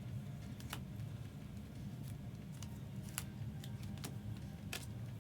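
A few sharp, light clicks and taps from things being handled on a table, spread unevenly over a steady low hum.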